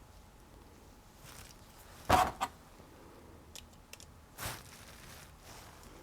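Handling noises as a screw is put back into a tubular door latch: a sharp knock about two seconds in with a smaller one just after, a few light clicks, and another knock about four and a half seconds in.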